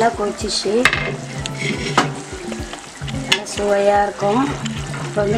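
Thick gravy bubbling at the boil in a clay pot and being stirred with a wooden ladle, with a few sharp knocks as the ladle strikes the pot.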